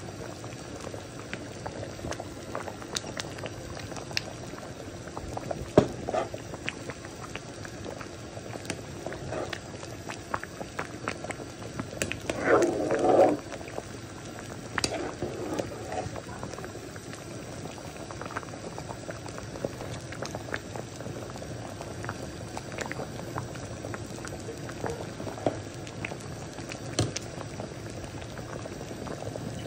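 Pot of red peas soup at a boil, bubbling with many small pops. A brief louder burst near the middle.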